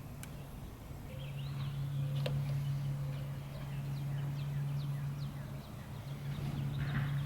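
A steady low hum that comes in about a second in, with many short, high, quickly falling chirps over it, like small birds calling, and a couple of sharp clicks.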